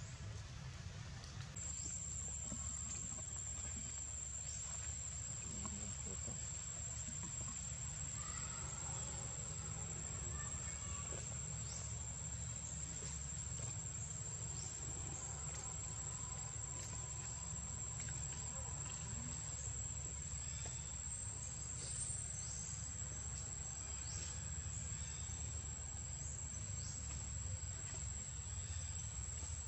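Insects droning steadily at one high pitch, starting about a second and a half in and holding unbroken, over a low steady rumble.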